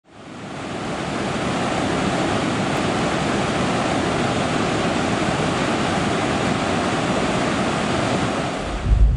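Rushing water, a steady, even rush of falling water that fades in over the first second. Shortly before the end a deep low rumble swells in underneath.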